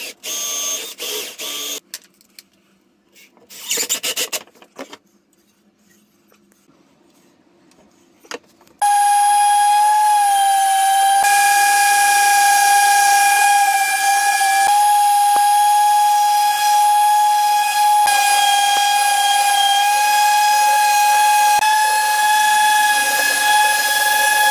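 Random orbital sander sanding a wooden frame: it starts about a third of the way in and runs with a steady high whine. Before it, a cordless drill whirs in short bursts, followed by a few seconds of quieter handling with faint knocks.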